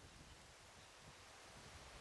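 Near silence: faint, steady forest background hiss.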